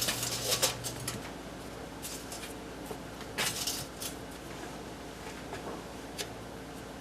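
Raw chicken breast being turned and pressed in a dish of flour: soft rustling pats, loudest in the first second and again about three and a half seconds in.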